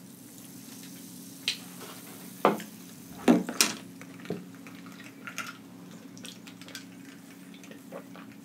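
Ice and a straw clinking in a drinking glass as it is lifted and stirred: a few sharp clicks, most of them in the first half, over a low steady hum.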